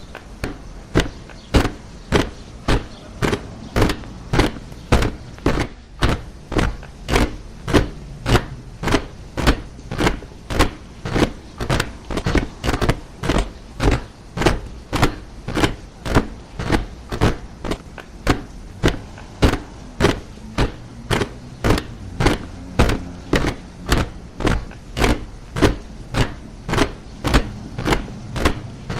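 A troop of soldiers marching in step, their boots striking the ground together in a steady cadence of about two steps a second.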